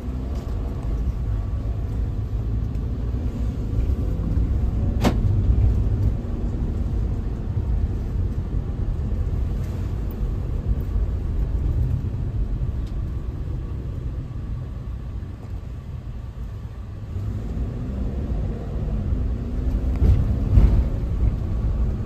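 Steady engine and road rumble heard inside the cabin of a moving shuttle van, with one short sharp click about five seconds in.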